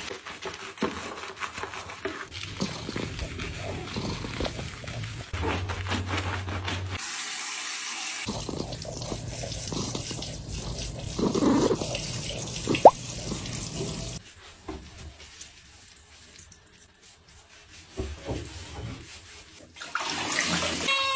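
Water running from a handheld shower head and splashing over a wet cat being bathed, with wet rubbing and handling noises. A cat meows briefly near the end.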